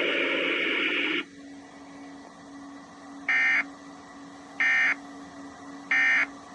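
Emergency Alert System end-of-message signal: three short, harsh digital data bursts about 1.3 seconds apart over a faint steady hum, marking the end of the flash flood warning. The louder broadcast audio before them cuts off about a second in.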